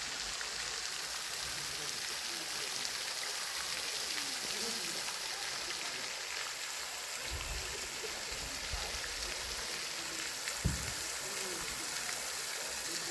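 Steady hiss of water, with faint voices in the background and a single low thump about ten and a half seconds in.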